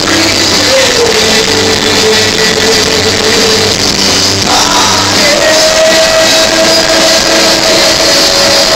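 A live rock band playing loudly with voices holding long sung notes, recorded from the audience with poor, distorted sound.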